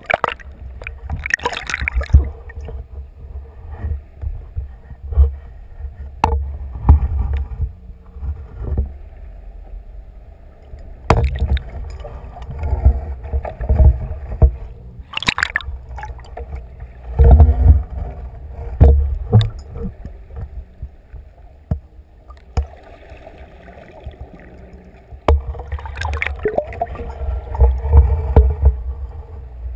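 Water moving around a submerged underwater camera: low, irregular rumbling with scattered sharp knocks and clicks, louder in stretches.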